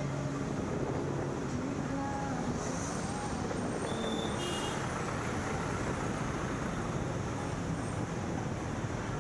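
Steady road and traffic noise from a moving vehicle in busy street traffic, picked up by a camera on the vehicle's roof. About four seconds in there is a brief high-pitched beep.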